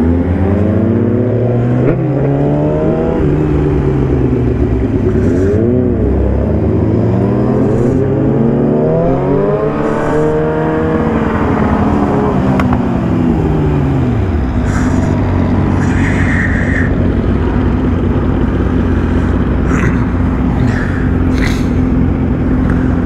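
Yamaha R6 inline-four sport bike engine under way, its pitch rising and falling repeatedly as the throttle opens and closes for the first half, then holding steady at a cruise, with wind noise throughout.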